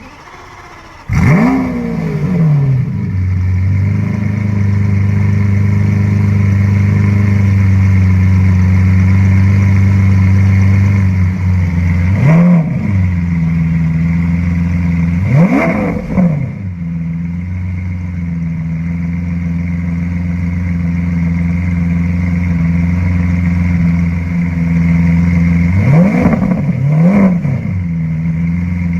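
Lamborghini Aventador LP700-4's naturally aspirated V12 starting about a second in with a sharp rev flare, then settling into a steady, loud idle. It is blipped several times with short throttle revs: once near the middle, once a few seconds later, and twice in quick succession near the end.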